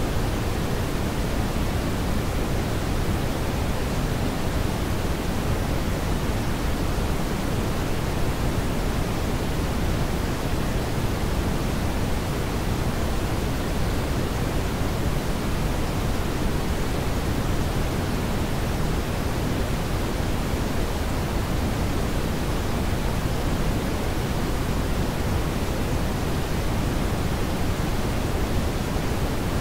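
Steady synthetic brown noise: a constant, even hiss weighted heavily toward the low end, with no rhythm or change.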